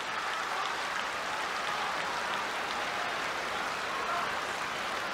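Large arena crowd applauding and calling out, a steady wash of clapping and voices.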